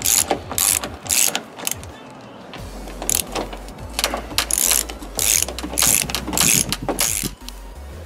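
Hand ratchet clicking in short bursts on each back-swing as it undoes splined size-8 screws from a car door lock. There is a brief pause about two seconds in, then about two strokes a second.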